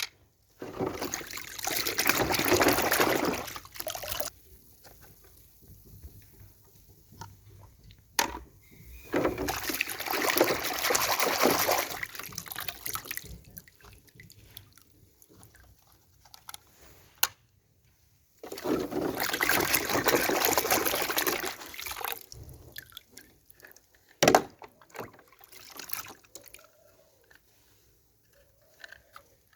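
Liquid pouring, in three bursts of about three to four seconds each, with a few sharp clicks in between, the loudest about two-thirds of the way through.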